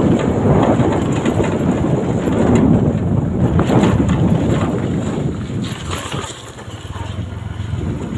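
Wind buffeting the microphone: a loud, uneven rumble that eases briefly about two-thirds of the way through.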